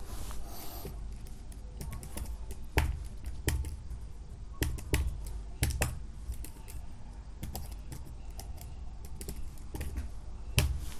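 Typing on a computer keyboard: irregular keystroke clicks, a few sharper and louder than the rest, the loudest near the end.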